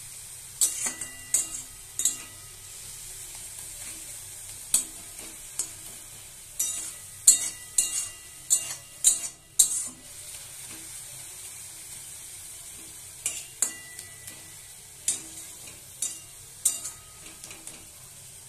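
Grated bottle gourd sizzling in a metal kadai while a spatula stirs it, scraping and knocking against the pan in bursts, with a steady sizzle in between.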